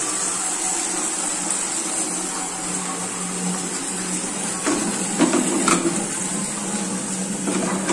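Tap water running steadily into a steel storage container, filling it. A few light knocks of plastic jars and lids come about five seconds in.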